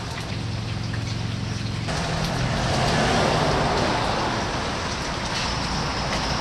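Steady street traffic noise, swelling as a vehicle passes about three seconds in and then fading.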